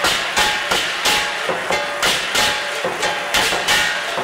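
Chinese lion dance percussion: drum, crashing cymbals and gong beating a steady, driving rhythm of about three strokes a second, each stroke ringing on.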